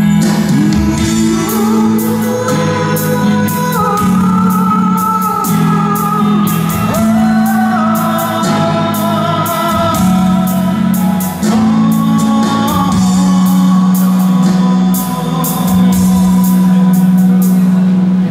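Live music: a man singing a slow, gliding melody while playing an electric guitar, over a steady low held note and a regular ticking beat.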